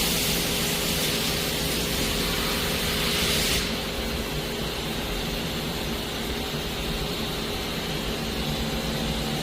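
Powered-up CNC mill-turn lathe humming steadily with a few constant tones, under a loud hiss of air that cuts off suddenly about three and a half seconds in.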